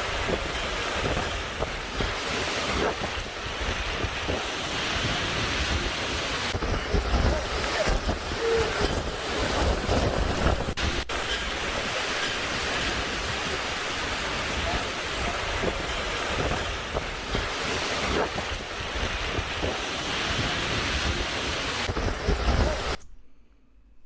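Hurricane-force wind blowing in loud, surging gusts and buffeting the microphone. It cuts off suddenly about a second before the end.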